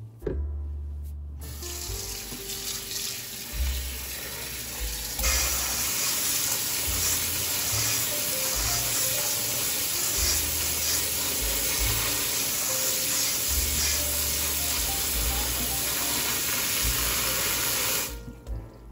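Kitchen tap water running onto lentils in a stainless steel colander in a steel sink. It starts soft about a second in, runs harder from about five seconds in, and stops near the end.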